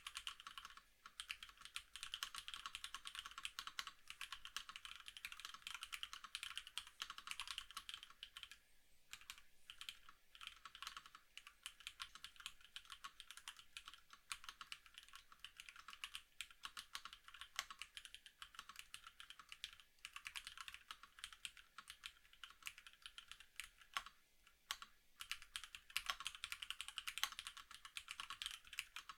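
Continuous fast typing on a custom mechanical keyboard with a polycarbonate plate, 50g Hey switches and Domikey single-chip keycaps: rapid, dense keystroke clicks that slow briefly a couple of times.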